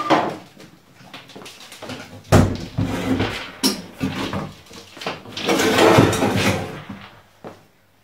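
A small refrigerator cabinet being handled: a heavy thump about two seconds in, then knocks and scraping as the cabinet is tipped upright.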